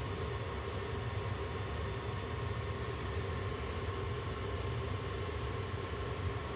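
Steady low machine hum with a hiss and a few faint held tones over it, unchanging.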